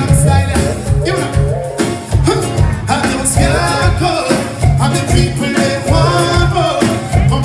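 Live reggae band playing, with a male lead singer over a steady bass and drum beat, guitars and keyboards, heard through the venue's sound system from within the crowd.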